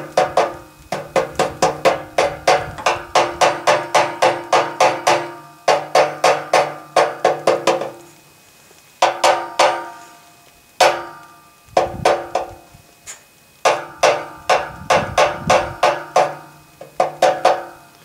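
Small ball-peen hammer tapping on the freeze-burst water line of a propane tankless water heater, a pipe the owner takes for aluminium, closing the split back up. Quick runs of metallic, ringing taps, about four a second, broken by a few short pauses.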